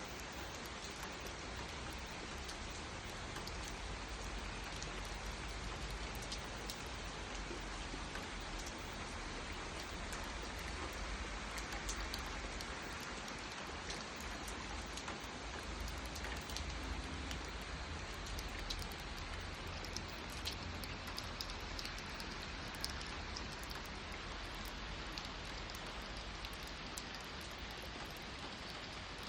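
Steady rain falling, an even hiss with scattered sharp drop ticks and a low rumble underneath.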